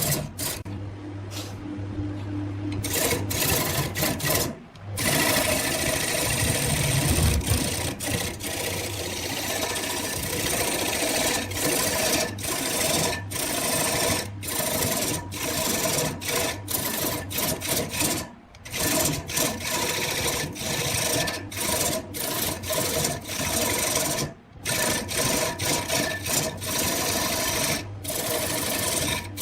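A wood lathe running while a turning tool cuts the spinning wood: a steady motor hum under a scraping hiss, broken by brief gaps every few seconds.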